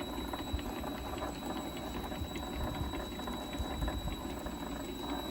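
Vevor MX400 mini lathe running at low speed with the change gears removed, its motor and belt drive turning the headstock. A steady mechanical whir with fast light clicking and a thin steady high whine.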